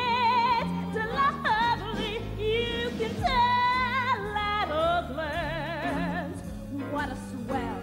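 A singer with orchestral accompaniment sings wordless, high phrases with wide vibrato: a long held note at the start, leaping runs, and another long held note a little past the middle.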